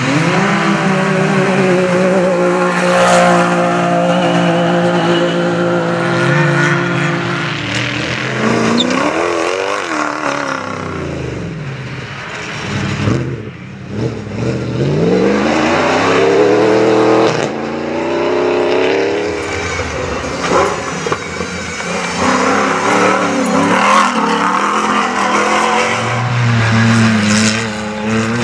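Several 4x4 off-road rally cars driving hard in turn on a dirt course, their engines revving up and falling away again and again as they accelerate and change gear.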